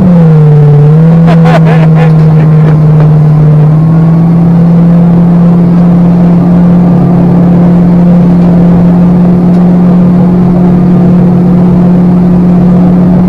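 Speedboat engine running at speed, a loud steady drone whose pitch dips briefly near the start and then holds, over water rushing along the hull.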